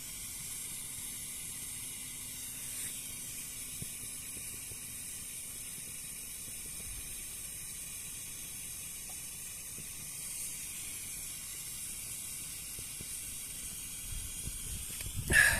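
A steady, even hiss, mostly high in pitch, with a faint low hum underneath that fades out about six seconds in.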